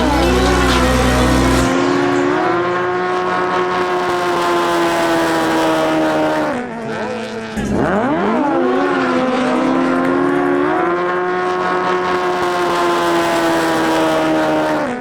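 A racing jet ski's engine revving hard from the start: its pitch climbs steeply, then holds high and steady as it runs at full throttle, drops off, and the same climb-and-hold comes again about seven and a half seconds in.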